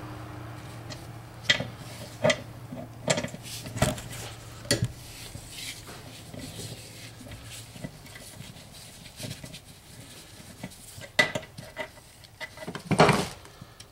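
Metal tools and parts clinking against an aluminium transfer case as it is worked on by hand: a run of sharp clinks a second or less apart in the first few seconds, then quieter handling, and two louder clanks near the end.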